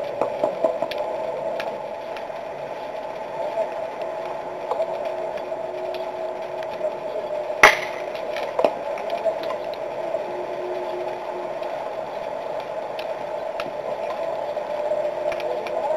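Baseball bat striking the ball: one sharp crack about halfway through, over a steady field-ambience hum with a few faint clicks.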